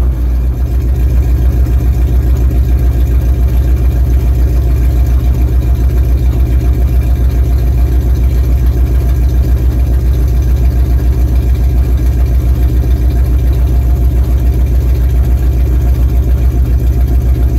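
A 1972 Dodge Charger's engine idling through dual Flowmaster Super 44 mufflers with an H-pipe and turndowns. The exhaust note is low and steady, with an even pulsing beat.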